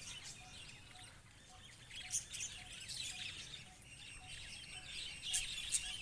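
A flock of budgerigars chattering: a dense run of fast, high chirps and warbles, with a few louder sharp calls about two seconds in and again near the end.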